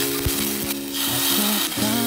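Minced garlic and chopped bird's-eye chillies sizzling in hot oil in a clay pot, stirred with a wooden spatula, under background music.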